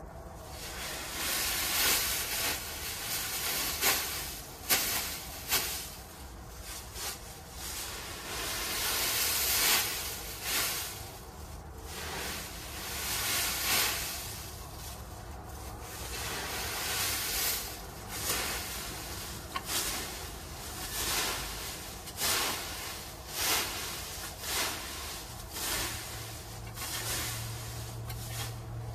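Garden fork raking and tossing dry fallen leaves: a crisp rustling swish with each stroke, coming every second or two.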